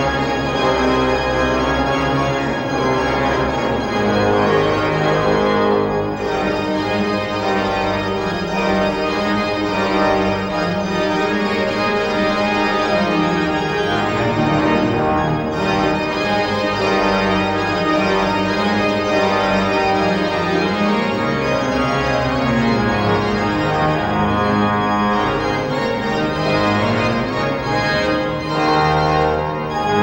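Pipe organ playing loudly: full sustained chords that change every second or so over a moving bass line.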